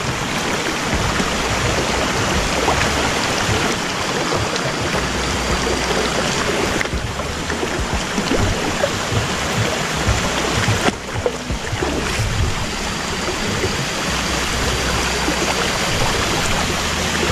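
Shallow river running over rocks and stones: a steady rush of flowing water.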